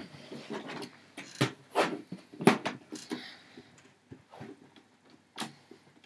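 Handling noise from a Tektronix 5103N oscilloscope being lifted, turned around and set down on a bed: an irregular series of knocks and bumps from its metal case and swinging tilt bail, with fabric rustling. The loudest knock comes about two and a half seconds in, with another about a second before the end.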